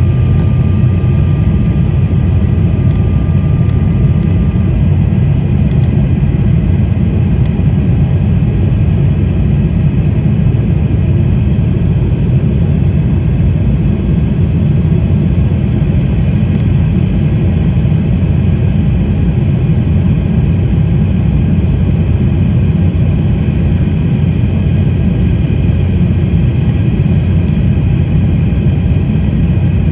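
Cabin noise of an Embraer E190 airliner: its GE CF34 turbofan engines and airflow make a steady, loud rumble with constant whining tones above it. A faint high tone drops out a few seconds in.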